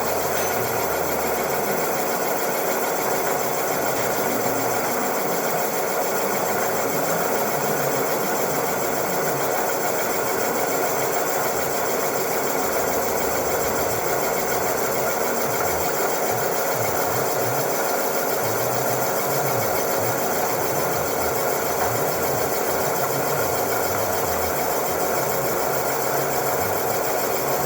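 Cylinder boring machine running steadily, its boring bar cutting a cylinder bore in an engine block, with an even machine drone and whine.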